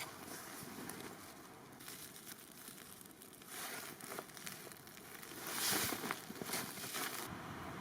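Rustling and crackling, like dry forest litter or brush being handled, with a sharp click at the start and louder spells of rustle about three and a half and five and a half seconds in.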